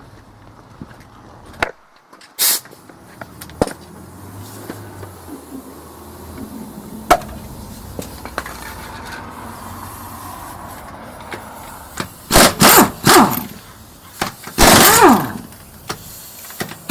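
Impact wrench zapping fasteners out: three quick bursts about twelve seconds in, then a longer burst near the end whose pitch falls away. Scattered sharp clicks and knocks of tool work come before them.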